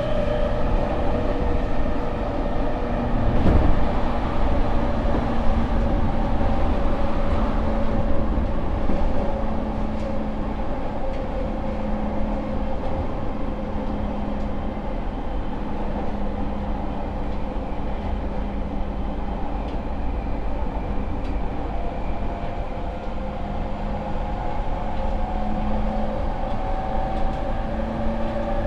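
Running sound inside a JR East E231 series 800-subseries motor car: a steady whine from its traction motors, which a Mitsubishi IGBT inverter drives, over the rumble of wheels on rail. There is one louder knock about three and a half seconds in.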